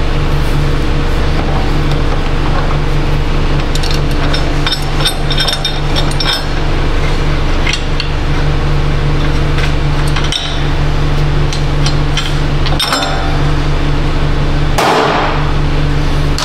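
Hand tools and steel parts clinking and tapping at a truck's front wheel hub: a cluster of light metallic clinks about four to six seconds in and a few more later, over a steady low hum. A brief rushing noise near the end.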